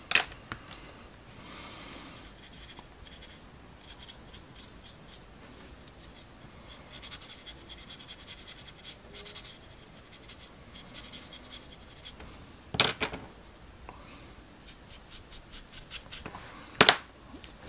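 Paintbrush scrubbing oil paint onto a plastic model fuel tank: runs of small, quick scratching strokes, broken by three sharper clicks or knocks.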